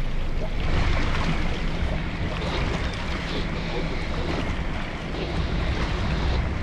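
Twin outboard motors idling, a steady low rumble, with water splashing from a swimmer's strokes close by.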